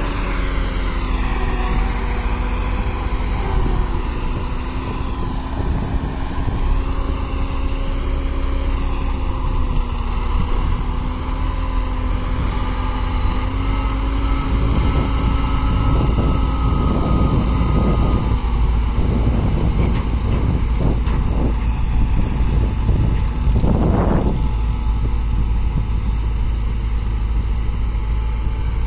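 Diesel farm tractor engines running steadily, working the hydraulics of tipping trolleys. Around the middle there are surges of rumbling noise as earth slides off a raised trolley bed.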